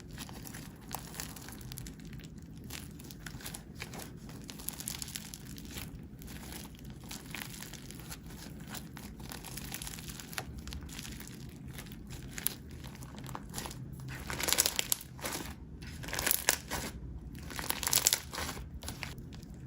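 Slime being squished and stretched by hand, making a run of small clicking pops with three louder bursts of pops near the end.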